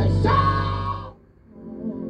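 Live band music with singing over a heavy bass line; the band stops abruptly about a second in, leaving a quieter held chord.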